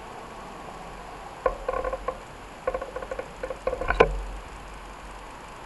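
Bicycle rattling and squeaking: clusters of short, pitched clicks and squeaks over about two and a half seconds, ending in a sharp knock about four seconds in.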